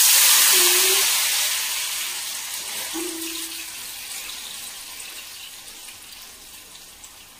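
Jackfruit chips dropped into hot sunflower oil in a kadai: a sudden loud sizzle that slowly dies down as the chips settle into deep-frying.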